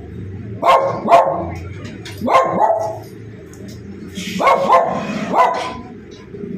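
A dog barking repeatedly, about seven barks, most of them in quick pairs.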